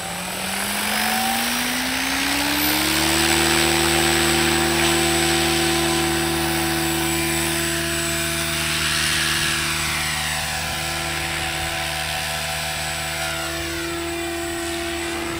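SAB Goblin 570 electric RC helicopter spooling up: the rotor pitch rises over the first three seconds, then holds at a steady headspeed. It keeps a steady whine as it lifts off and flies.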